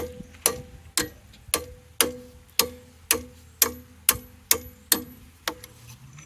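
Hammer striking metal in a steady rhythm, about two blows a second with a short ring after each, about a dozen in all, stopping near the end: working a tight key out of a shaft's keyway.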